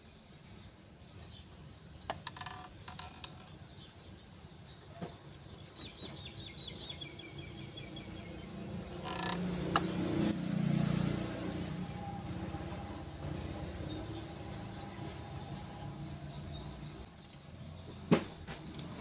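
Plastic case of a Sony D-EJ360 portable CD player clicking and knocking as it is handled and turned over, with a sharp click near the end. A low rumble swells about halfway through, and faint chirps come in.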